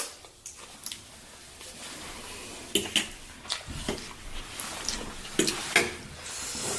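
Eating utensils clicking and scraping against a dish during a noodle meal, in a series of short, irregular clinks.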